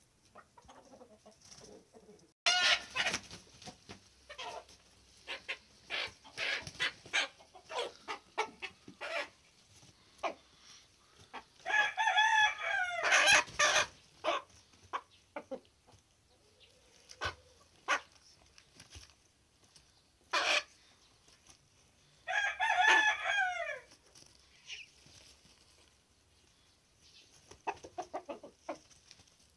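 Chickens clucking and squawking in short calls, then a rooster crowing twice, each crow about two seconds long and falling at the end, the two crows several seconds apart.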